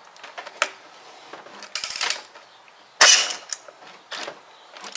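Pneumatic air ratchet run in short bursts, tightening a 10 mm nut: air hiss and ratchet clatter, with two main bursts about two and three seconds in and lighter clicks between.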